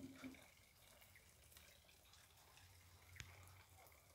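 Near silence: faint dripping of rainwater, with scattered soft ticks and one sharper click about three seconds in.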